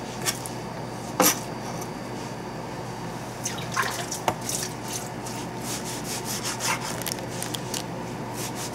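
Kitchen knife slicing raw sea bream fillet for sashimi on a plastic cutting board: scattered soft taps and wet rubbing of the blade through the flesh, with a sharper tap about a second in, over a steady low hum.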